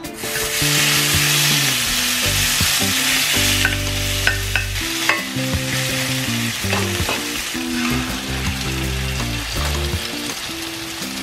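Pork dinakdakan dropped onto a hot cast-iron sizzling plate, sizzling loudly as it lands and then more steadily. A few sharp clinks come from the metal spoon against the plate as the meat is spread out.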